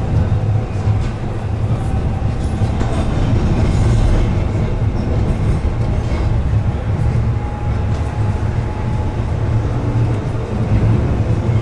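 Blackpool tram running along the track: a steady low rumble of wheels and running gear, with a faint whine that comes and goes.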